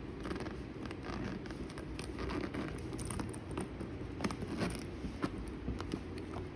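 Packaging being handled by hand: irregular light taps, rustles and crackles of boxes and wrapping being opened and moved.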